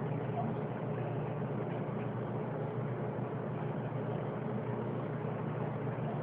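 A steady low mechanical hum, like a motor or engine running evenly, with no change or sudden sound.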